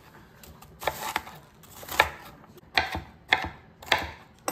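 Kitchen knife chopping a white onion on a wooden cutting board: about seven sharp knocks of the blade striking the board, unevenly spaced about half a second apart.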